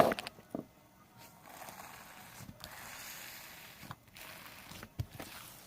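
A shimmer spray hissing onto slime in a long steady burst, then a shorter one after a brief pause, with a few sharp clicks at the start.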